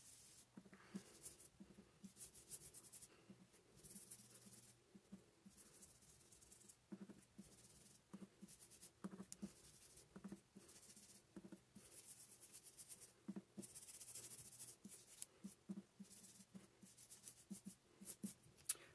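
Faint, irregular scratchy rubbing and dabbing of a stencil brush on paper over a plastic stencil.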